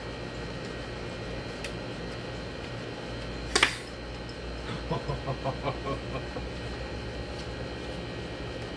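A single sharp puff about three and a half seconds in: a dart blown from an 18-inch Predator blowgun into a wooden fence. A few short, soft sounds follow about a second later.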